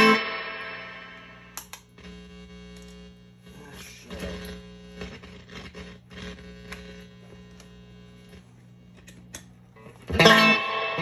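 Electric guitar through a tube amp and spring-style reverb: a chord at the start rings out into a long decaying reverb tail over a steady mains hum. Softer notes and a few clicks come in the middle, and loud strummed chords start again near the end.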